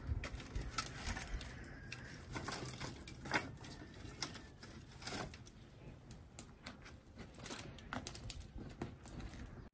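Dry firewood sticks knocking and clattering as they are picked up by hand from a woodpile, in scattered irregular light knocks.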